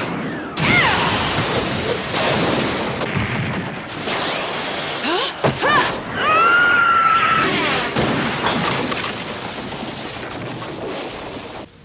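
Anime fight sound effects: loud booming crashes and impacts with sweeping whooshes, several sharp hits spread across the stretch, fading somewhat near the end.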